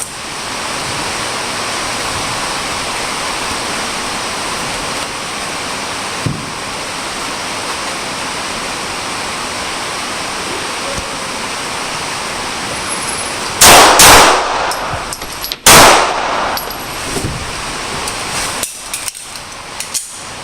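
Three handgun shots: two in quick succession, then a third about a second and a half later, over a steady background hiss.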